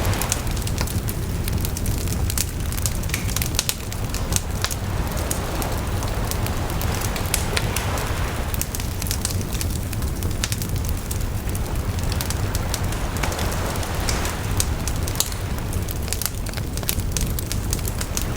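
Campfire crackling and popping, over ocean waves washing in and out on the shore every few seconds, with a steady low rumble beneath.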